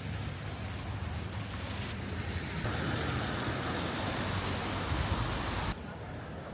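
Street traffic noise: a steady wash of passing vehicles that grows louder a couple of seconds in, then drops off abruptly near the end.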